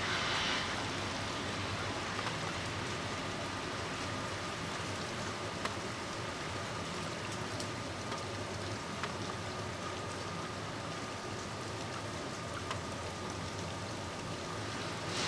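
Freezing rain falling steadily in an ice storm: an even hiss with scattered small ticks of drops striking, and a brief louder swish at the very start.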